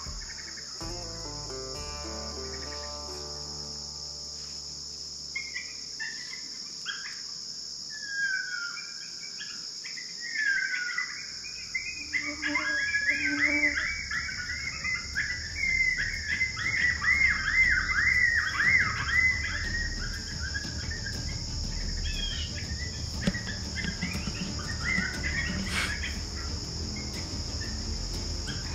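A group of coyotes yipping and howling: a wavering chorus of rising and falling calls that starts about five seconds in, is loudest around the middle and dies away about three-quarters through, over a steady chirring of crickets.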